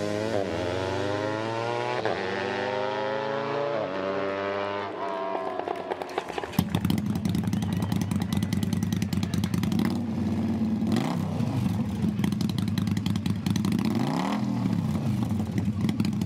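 Racing motorcycles accelerating hard through the gears, the engine pitch climbing and dropping back at each shift. From about six and a half seconds in, a motorcycle engine idles close by with a rattly beat, blipped up and back down twice.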